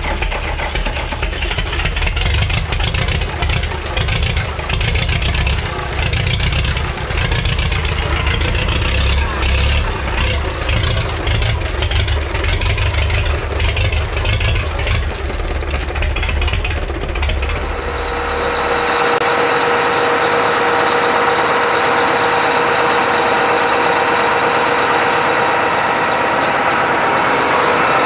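An old diesel engine, mounted bare on a stand, running with a rapid clatter and a deep rumble while smoking from its cold start. About 18 seconds in, it gives way to a steadier, even engine hum without the deep rumble.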